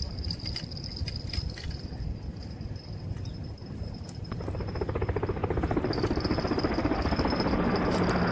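Insects trill steadily in a high tone. From about halfway a louder, rough mechanical noise with fast fine ticking builds up, with a low hum joining near the end.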